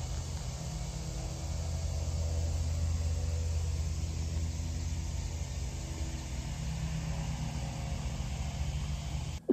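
Steady low rumble of a motor vehicle running, with a faint hum of tones above it and no sharp events.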